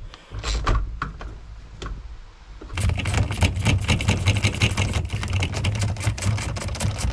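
A bolt being undone from the VW T5 seat's armrest pivot with a multi-spline bit. There are a few knocks at first, then from about three seconds in a fast, continuous mechanical clatter of clicks over a low hum.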